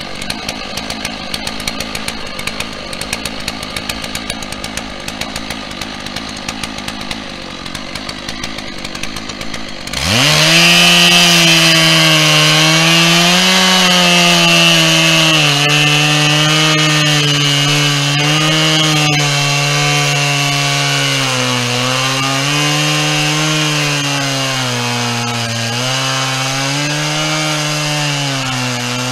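A two-stroke chainsaw on a chainsaw mill runs at a lower, steadier note for about ten seconds. It is then throttled up sharply to full speed and rips along a pine log. The engine pitch sags and recovers again and again as the chain loads and frees in the cut.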